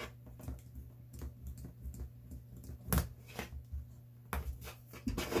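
Utility knife cutting and scraping dried Shoe Goo squeeze-out off the edge of a shoe's rubber sole: scattered small scrapes and clicks, the loudest about three seconds in and a denser run near the end, over a steady low hum.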